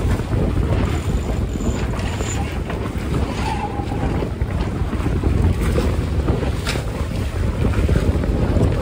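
Wind buffeting the microphone aboard a sailboat under way, a steady low rumble over the wash of sea water.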